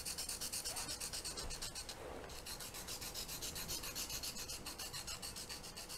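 Charcoal pencil point being sharpened on a sandpaper block: quick, even back-and-forth strokes of the lead on fine sandpaper, several a second.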